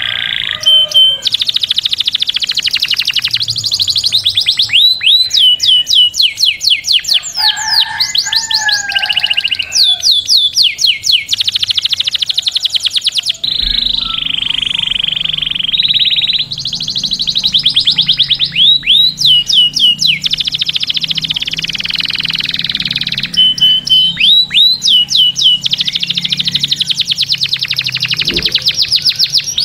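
Canary singing phrase after phrase of fast trills: rapidly repeated, sweeping high notes, with a few held whistles between the rolls.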